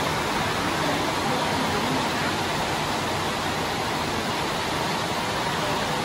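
Steady rain falling, an even, unbroken hiss.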